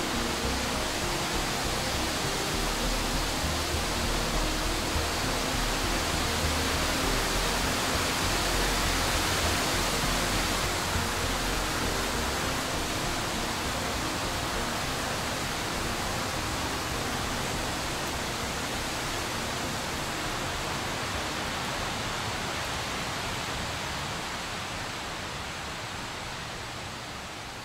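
Steady hiss-like rushing noise, with a low rumble through the first half; it fades out near the end.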